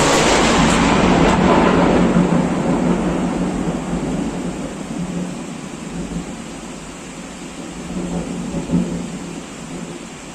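A close thunderclap cracks right at the start and rolls into a long rumble that slowly dies away over heavy rain, with a smaller rumble of thunder about eight seconds in.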